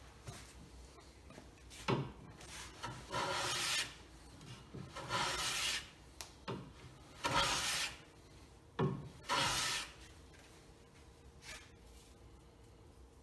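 Hand plane shaving the top of a black walnut castle joint: four separate rasping strokes about a second apart, with short knocks in between.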